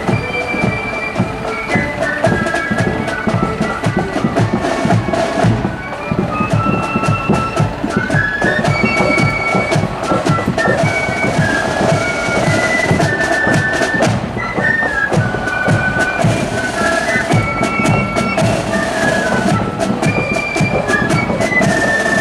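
Marching flute band playing a tune, the flutes' high melody carried over driving snare and bass drum beats.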